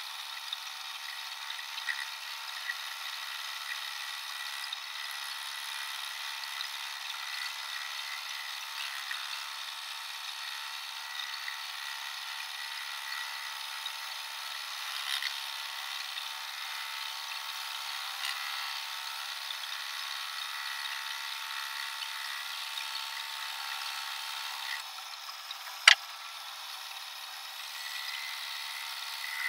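Electric scroll saw running, its reciprocating blade cutting through a wooden blank with a steady rasping buzz. A single sharp click comes near the end.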